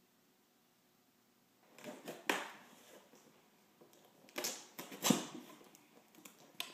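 Near silence at first, then a knife cutting into the taped top of a cardboard box: a series of short scratchy scrapes and sharp jabs, the sharpest about two and five seconds in.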